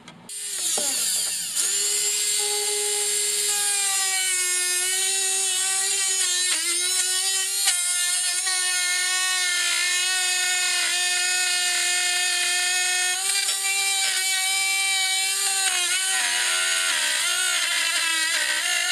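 Electric router spinning up to speed and running with a steady high whine, its pitch dipping briefly now and then as the bit cuts a shallow recess into plywood.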